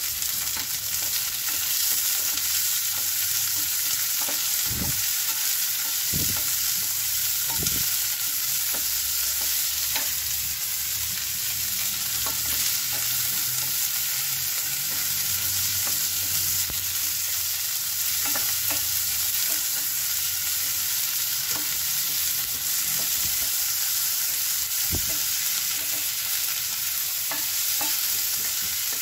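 Chopped onions frying in hot oil in a steel pan, a steady sizzle, stirred with a wooden spatula that knocks against the pan a few times.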